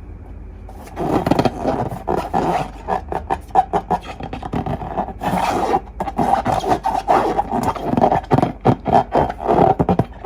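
Slime being squeezed and kneaded by hand: a dense run of quick, sticky crackles and pops with rubbing in between, starting about a second in.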